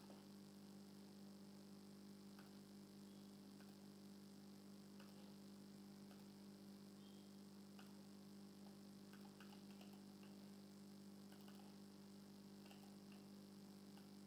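Near silence: a faint steady electrical hum, with a scattering of faint clicks from a computer mouse.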